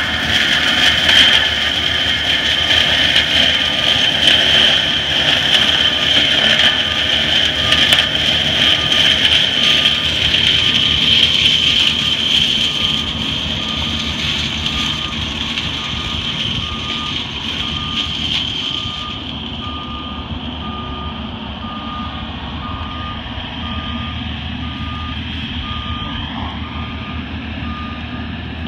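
Cat 299D compact track loader with a Denis Cimaf mulching head running hard: diesel engine rumble under a high-pitched whine from the machine and its mulcher. From about a third of the way in, the loader's backup alarm beeps about once a second as it reverses, and the whole sound fades gradually as the machine gets farther off.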